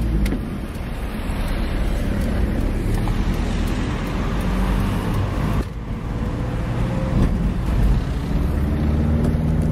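Motor traffic: a car engine running with a steady low hum over road noise, dipping briefly a little after halfway.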